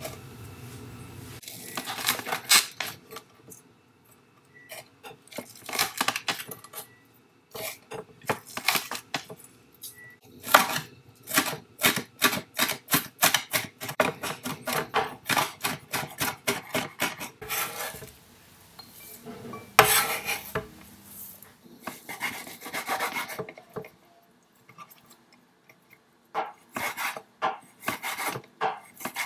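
Kitchen knife chopping and mincing garlic on a wooden chopping board: quick runs of sharp knife strikes on the wood, with short pauses between runs.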